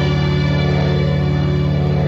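Soundtrack music: a low, sustained chord held steady.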